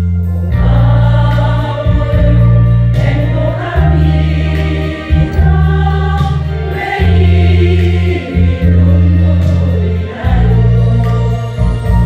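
Women's choir singing a song in harmony over an accompaniment track with a strong bass line.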